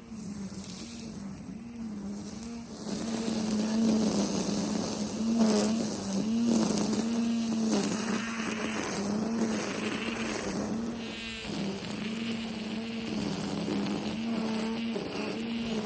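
Kobalt 24-volt cordless string trimmer running steadily, its pitch sagging and recovering again and again as the line cuts through tall, tough grass. From about three seconds in it gets louder, with more swishing from the grass being cut.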